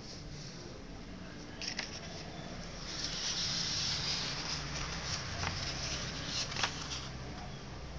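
A sheet of origami paper rustling and crackling as it is lifted and folded by hand, loudest in the middle, with a few sharp crackles. A steady low hum underneath.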